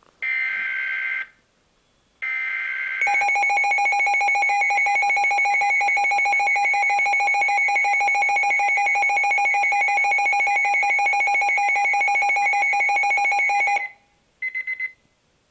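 Emergency Alert System alert tones: two short, shrill data bursts, then a loud continuous attention tone for about eleven seconds, then one brief burst near the end.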